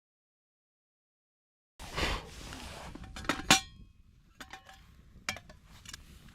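Total silence for nearly two seconds, then a rustle and metal camp cookware clanking and clinking, with a ringing clank about three and a half seconds in and lighter clinks after it.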